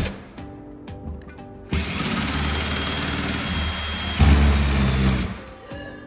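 Cordless drill running in one steady burst of about three and a half seconds, starting near the second mark. It gets louder and heavier about a second before it stops.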